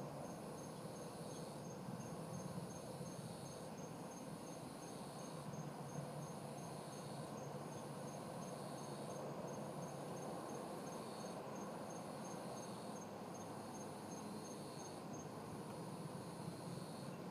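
Night insects, crickets, in chorus: one keeps up a steady, fast, high trill while a louder buzz pulses on and off about every couple of seconds, over a low steady rumble.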